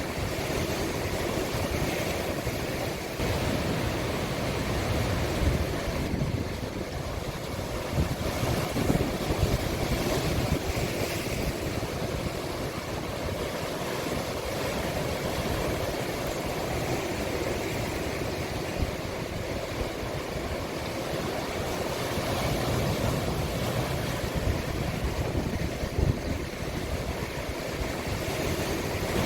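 Sea waves washing into a small cove: a steady noise of surf with a low, uneven rumble underneath.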